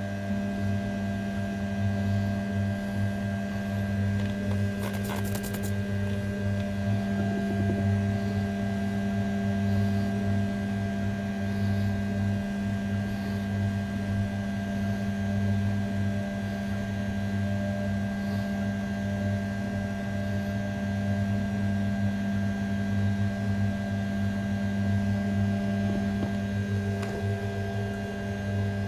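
500 W brushless spindle on a desktop CNC mill running steadily at about 6000 rpm, a constant hum with no cutting noise yet: the roughing program has started but the end mill has not reached the aluminium. A brief rattle of clicks about five seconds in.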